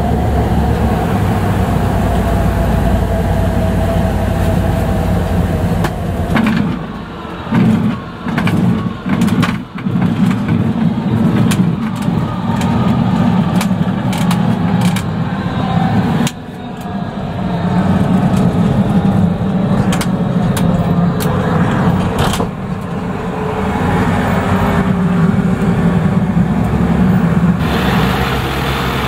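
Small seaplane's engine and propeller running with a steady low drone, heard mostly from inside the cabin. The sound breaks off briefly several times with clicks about a quarter of the way in, and its tone changes abruptly twice later on.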